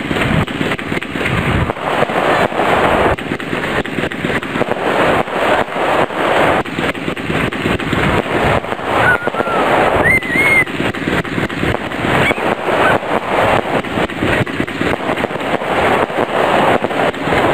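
Aerial firework display: a rapid, continuous barrage of bangs and crackles from rockets and bursting shells.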